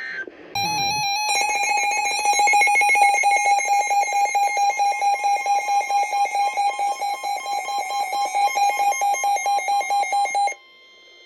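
Emergency Alert System attention signal: a loud, steady electronic alarm tone with a fast pulsing buzz. It starts about half a second in and cuts off abruptly after about ten seconds. It marks the start of a new alert, here a severe thunderstorm warning.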